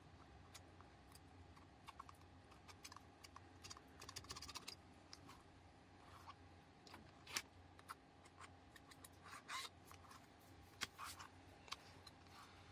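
Faint scratching and light tapping as a painting tool works thick acrylic paint on a small stretched canvas. A sharper click comes a little past halfway, and a few longer scrapes follow near the end.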